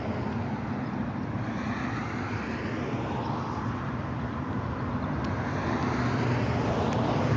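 Steady rushing noise of rough river water mixed with a passing vehicle, which swells louder toward the end.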